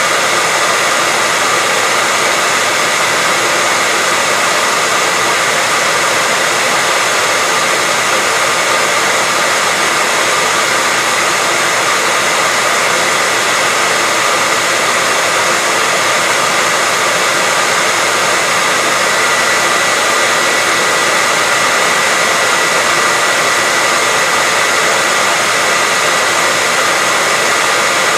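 Hair dryer running continuously at a constant speed: a steady rushing blow with a faint whine, with no change in pitch or level.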